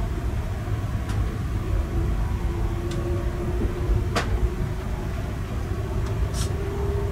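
Electric passenger train heard from inside the carriage while moving slowly: a steady low rumble of wheels on rails with a faint whine that rises slightly near the end. A few sharp clicks cut through, the loudest about four seconds in.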